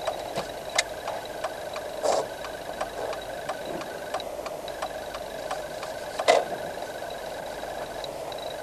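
Car turn-signal relay ticking evenly inside the cabin over the engine running at a slow crawl in low gear, with two louder knocks, about two seconds in and about six seconds in.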